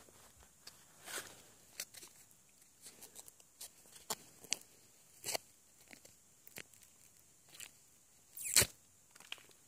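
Footsteps crunching in dry fallen leaves, slow and uneven, with one louder crunch near the end.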